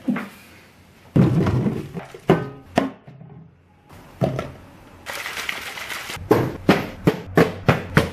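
A plastic water bottle being handled and knocked, then tumbling down wooden stairs in a run of hollow thunks, about three a second near the end.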